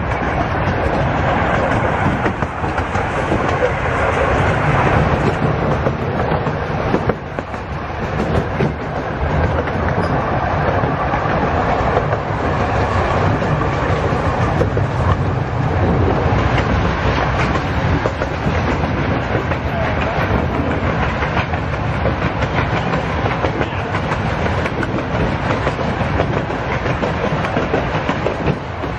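Steady running noise of a miniature park train's cars rolling along the track, heard from aboard the moving train.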